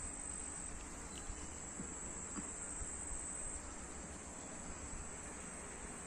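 Insects trilling: a faint, steady high-pitched drone that eases off a little about halfway through.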